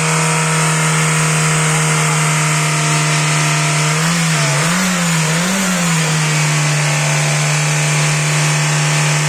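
Citroën Xsara petrol engine held at raised revs by hand on the throttle, running steadily, with two brief rises and falls in engine speed about halfway through. The engine is being warmed until the thermostat opens after a coolant change.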